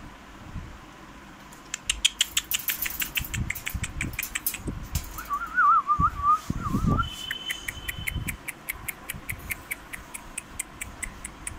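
Rapid, irregular clicking and rattling as husky puppies move about on a wire cage floor, with a short wavering high-pitched call about five seconds in.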